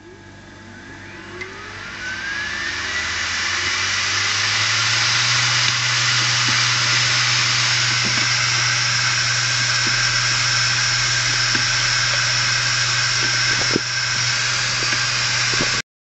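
Open hard disk drive, its lid off and still wet from being rinsed in water, spinning up: a whine rises in pitch over the first few seconds as the platter comes up to speed. It then runs with a steady hum and loud whirring hiss, with a few faint clicks, and cuts off suddenly near the end.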